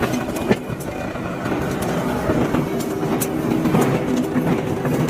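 Forge-shop machinery running steadily, with a few sharp clicks scattered through it.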